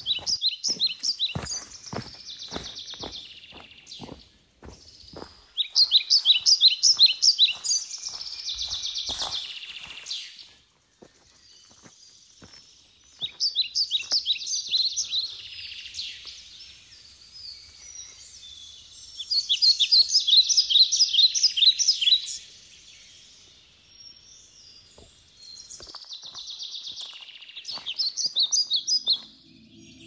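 A songbird singing bursts of rapid, repeated high chirping notes, five songs spaced several seconds apart. Footsteps on a sandy trail sound steadily through the first ten seconds and briefly again later.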